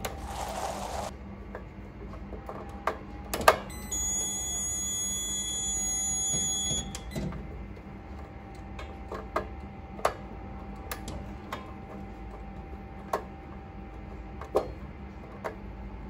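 Scattered sharp clicks and taps of a screwdriver and wires being handled at a fire alarm panel's terminal block. There is a short whoosh in the first second, and a steady high electronic tone sounds for about three seconds from around four seconds in.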